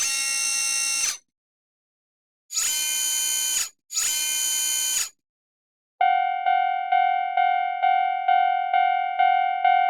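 Three electronic tones, each about a second long, then from about six seconds in a Japanese railroad crossing alarm starts its bell-like clang, about two strikes a second.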